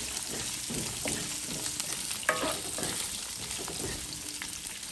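Bell pepper and red onion pieces sizzling in hot oil in a nonstick wok, stirred with a plastic spatula. A steady frying hiss runs under a few short scrapes and taps of the spatula against the pan.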